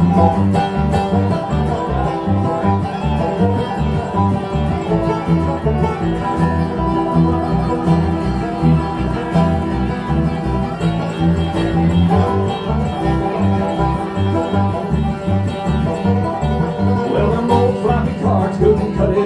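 Live bluegrass band playing an instrumental break: banjo and guitar picking over a steady bass beat.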